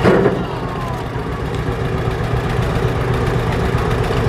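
John Deere two-cylinder tractor engine running slowly and steadily as the tractor inches along a tilting balance-beam ramp. A brief louder knock comes right at the start.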